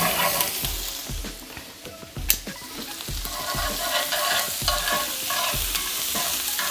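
Fingerling potatoes sizzling in browning butter with garlic and herbs, stirred around the pan with steady strokes, and one sharp clink about two seconds in.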